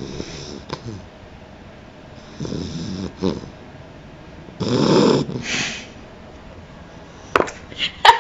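A sleeping pet snoring in slow, regular breaths, three of them about two and a half seconds apart, the third the loudest. Near the end come a few short, sharp sounds.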